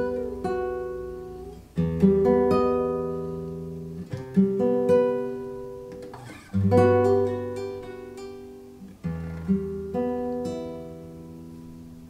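Acoustic guitar played alone: chords strummed every second or two and left to ring, the last one slowly fading away near the end.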